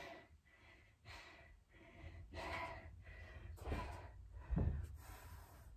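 A person breathing hard after a set of plyometric squat jumps: about five heavy breaths, roughly one a second, as they recover from the exertion.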